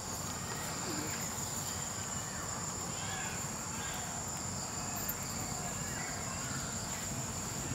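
Steady high-pitched insect chorus, a continuous drone of many insects calling at once.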